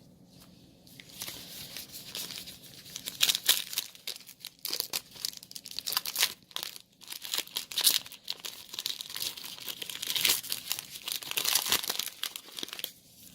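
Foil wrapper of a Yu-Gi-Oh! Metal Raiders booster pack being torn open and crinkled by hand, an irregular run of sharp crackles as the pack is opened and the cards are pulled out.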